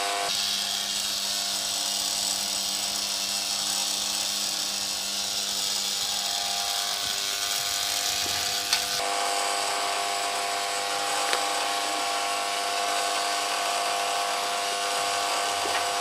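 Hot steel knife blades hissing in an oil quench. About nine seconds in the hiss cuts off and gives way to a steady electrical hum, with a few light knocks.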